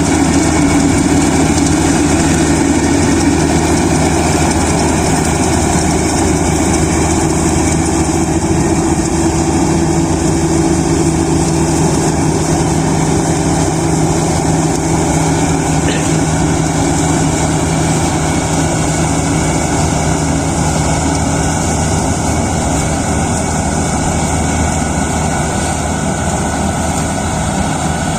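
Kubota DC-35 rice combine harvester's diesel engine and machinery running steadily and loudly, easing slightly in level over the course of it.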